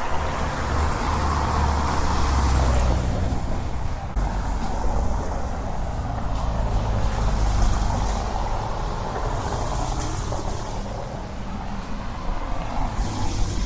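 City road traffic: motor vehicles running and passing by, a continuous low rumble that swells and eases a couple of times.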